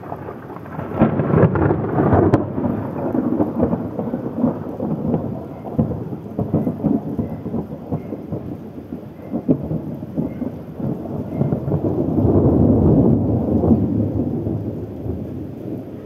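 Thunder rolling over steady rain in a thunderstorm. One long rumble swells about a second in, and a second builds near the end.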